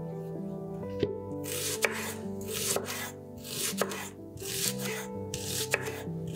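Chef's knife slicing a red onion on a wooden cutting board: each cut is a crisp crunch through the onion that ends in a knock of the blade on the board, about one cut a second. Soft background music plays underneath.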